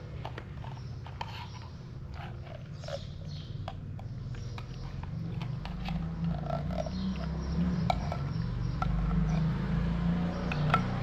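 A cat's low rumble close to the microphone, growing louder in the second half, with small clicks and scrapes as wet cat food is dished out from a container and the cats eat.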